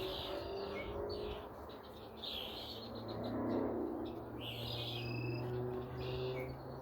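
Birds chirping, with short calls repeating every second or two.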